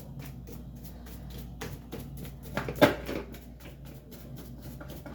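Cleaning dust off a dismantled electric fan: quick rubbing strokes and handling of its plastic parts, with a few knocks, the loudest about three seconds in. A steady low hum runs underneath.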